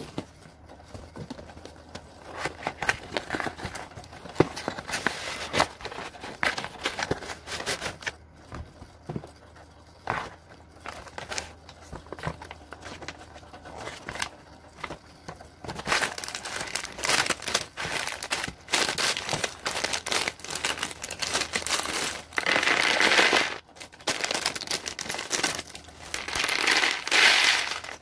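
Packaging being handled: cardboard and paper rustling with scattered taps and clicks, then clear plastic bags of nano-block bricks crinkling, denser in the second half with two loud spells of crinkling near the end.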